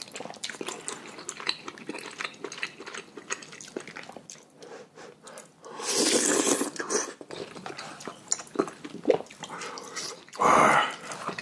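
Close-miked eating of jjamppong and jajangmyeon noodles: wet chewing and small mouth clicks throughout, a long, loud slurp about six seconds in, and a shorter loud sound near the end.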